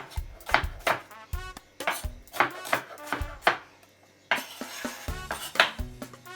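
Light background music of quick plucked-string notes over a bass line.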